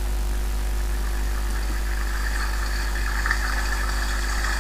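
A steady low hum with an even hiss above it, unchanging throughout.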